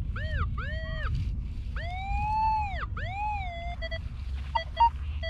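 Metal detector target tones on a buried target: pitched tones that rise and fall in arcs, two short ones and then two longer ones, followed from about four seconds in by short repeated beeps at two pitches.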